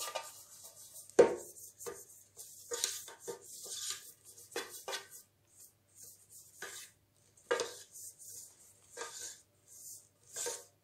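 Hand rubbing and wiping the inside of a metal springform cake pan to grease it, with short scrapes and knocks of the pan; the loudest knock comes about a second in.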